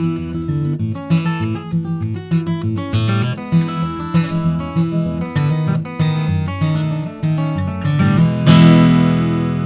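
Martin DCPA5K dreadnought cutaway acoustic guitar, with a solid Sitka spruce top and koa-pattern high-pressure laminate back and sides, played as a run of picked single notes and chords. About eight and a half seconds in, a full chord is struck and left ringing.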